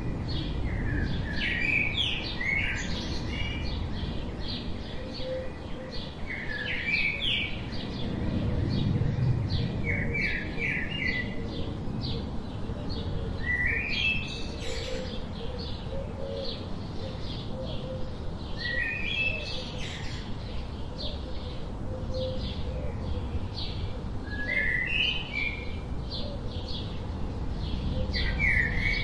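Songbird singing a short phrase that climbs in pitch, repeated every four to six seconds, over many fainter quick chirps and a steady low rushing background.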